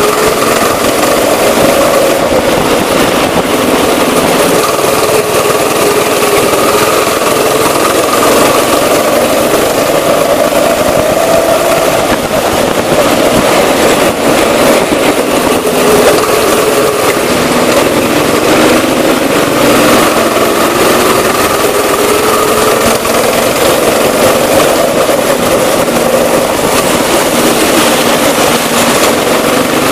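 Rental go-kart engine running under load, heard from the driver's seat. Its pitch rises and falls as the throttle opens and closes through the corners.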